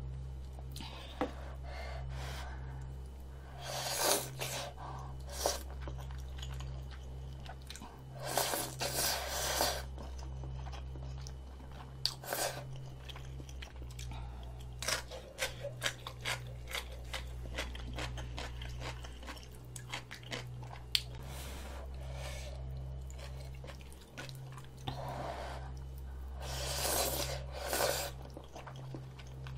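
Close-miked chewing and crunching of food in irregular bursts, with a run of quick crunches in the middle. Near the end come louder bursts of noodles being slurped. A steady low hum runs underneath.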